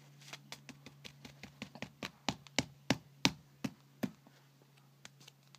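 Light, irregular taps and clicks of hands handling trading cards on a surface, a dozen or more, loudest in the middle.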